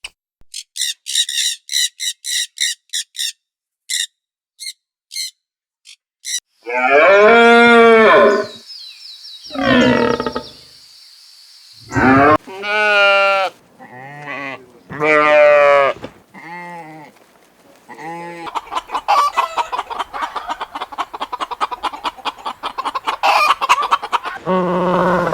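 Farmyard animal calls, chickens among them: a quick series of short, high chirps, then a string of loud, drawn-out pitched calls with shorter clucking calls between, ending in a dense, rapid chatter of clucks.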